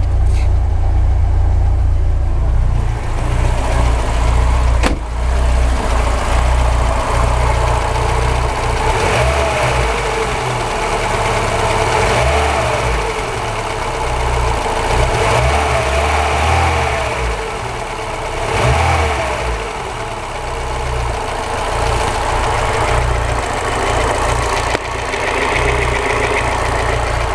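Fuel-injected VAZ-2107 four-cylinder engine running, with a knock that the owner traces to the area of the first spark plug and cannot explain, as the valves, camshaft, rockers, timing chain and tensioner are all new.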